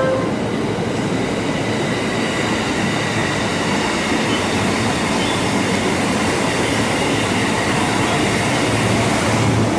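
JR East E235 series 1000-subseries electric train passing at close range, with a steady noise of wheels running on the rails.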